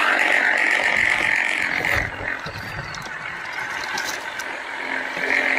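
Small motor of a miniature toy bus whirring as it drives over dirt. The whir eases off about two seconds in and swells again near the end, a noise taken as a sign that something is wrong with the bus.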